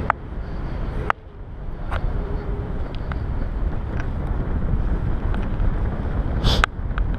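Wind buffeting the microphone as a paraglider flies, a steady low rushing with scattered short clicks and a brief crackle near the end.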